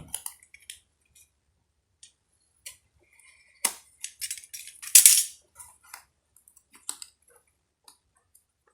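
Retail processor box and its plastic packaging being handled and opened: scattered clicks and crinkles, with the loudest crackle about five seconds in.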